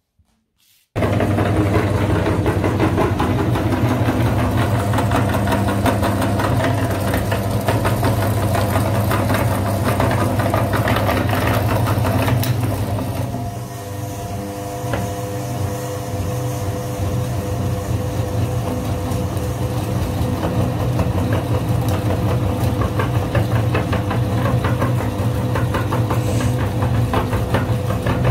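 Electric meat grinder switched on about a second in and running with a steady hum, its auger forcing soap through the cutting plate. Around halfway the sound changes and drops slightly, then runs on steadily.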